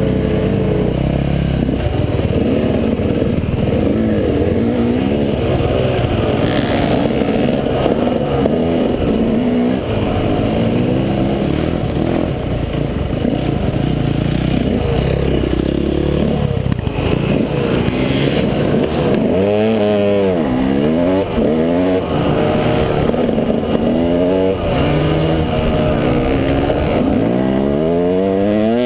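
Off-road motorcycle engine running under changing throttle while riding a trail. Its pitch rises and drops back over and over as it revs up and shifts.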